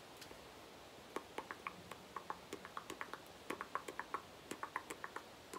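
A run of soft, irregular clicks, a few a second, starting about a second in.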